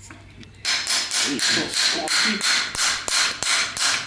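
Rapid hammer blows on metal, about four a second, starting about half a second in. The strikes drive a new crown race down onto the mountain bike fork's steerer tube.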